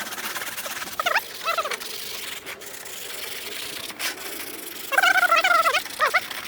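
Scraping and rubbing the old crumbling foam backing off a car headliner board, a steady rasping scrub, with short squeals that bend in pitch breaking through about a second in and again near the end.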